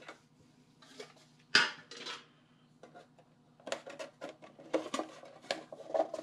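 Metal trading-card tin being opened and handled: a few separate metallic clicks and clanks, then a denser run of clatter and handling noise from a little past halfway.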